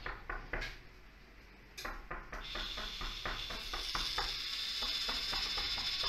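Small geared electric motor of a homemade door lock starting up about two seconds in, winding a string to draw back a sliding door bolt. It runs with a steady high whine over a rapid, even clicking of about five clicks a second.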